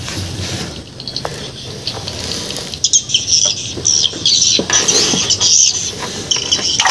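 Small birds chirping in quick, repeated high calls from about three seconds in, over low rustling.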